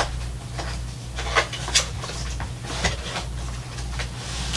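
An alarm clock's packaging being opened and handled: a string of irregular short scrapes, taps and rustles over a steady low hum.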